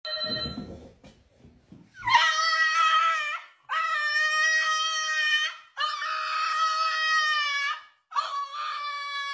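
A French bulldog howling: four long, high-pitched howls with short breaths between them, starting about two seconds in.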